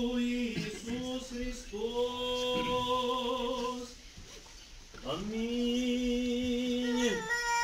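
Orthodox liturgical chant sung a cappella: phrases of long held notes on a nearly steady pitch, with short breaks between them and a brief pause about four seconds in.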